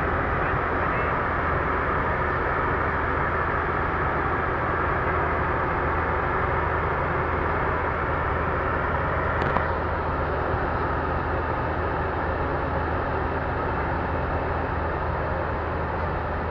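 Heavy diesel engine running steadily, with one short sharp click a little past halfway.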